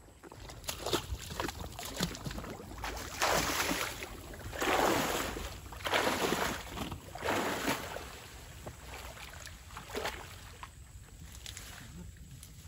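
Shallow muddy water splashing and sloshing around a person's legs as he wades in, in several surges through the middle, the loudest about five seconds in, then quieter.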